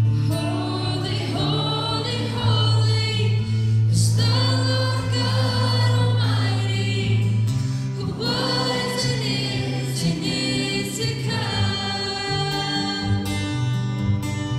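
A live worship song: many voices singing together over an acoustic guitar and a steady low bass note, in phrases starting about every four seconds.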